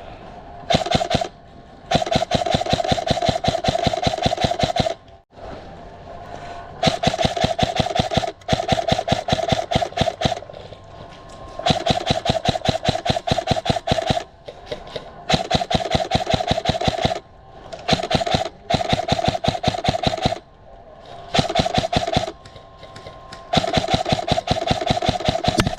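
Krytac Trident MKII CRB-M airsoft electric gun firing on full auto in repeated bursts of rapid gearbox clicks over a steady motor whine. There are about eight bursts, from under a second to a few seconds long, with short pauses between them.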